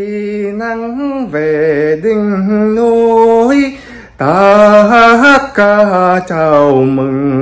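A man singing a birthday song solo, in long held notes that waver in pitch. He breaks off briefly a little before four seconds in, then carries on.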